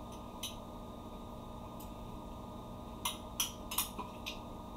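A metal spoon clinking and tapping against a small blender cup as chopped carrot and apple are spooned in: a couple of light clicks early, then a quick run of five or so taps about three seconds in.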